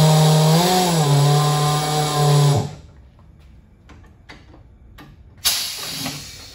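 Tire changer's turntable motor running with a steady hum and hiss for about two and a half seconds, turning the beadlock wheel, then stopping abruptly. A few light clicks follow, then a sudden burst of air hiss near the end that fades away.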